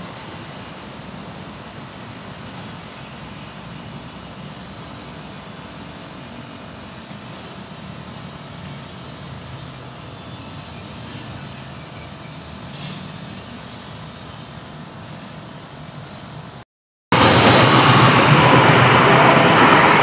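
A passenger train of executive and luxury carriages passes close at speed: a loud, steady rush of wheels on rails that starts abruptly near the end. Before it there is only a low, steady background rumble.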